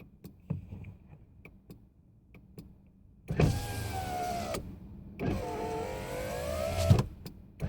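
A 2002 Nissan Sentra's power window motor runs twice: a short whine of about a second, then a longer one of nearly two seconds whose pitch dips and climbs before it stops with a knock. This is a window working again from the freshly cleaned master switch. A few faint clicks come before the motor starts.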